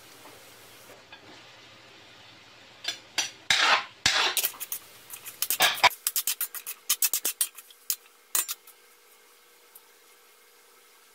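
A metal spatula scraping and clanking against an aluminium wok while stir-frying sliced vegetables. It is a run of short, sharp strokes that begins about three seconds in, comes quickest a little past the middle, and stops at about eight and a half seconds.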